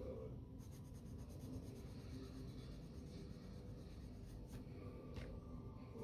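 Soft scratching of a coloured pencil on paper in repeated back-and-forth shading strokes.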